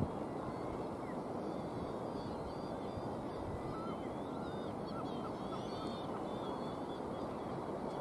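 A flock of gulls calling faintly, short thin calls scattered through the middle seconds, over a steady rushing noise.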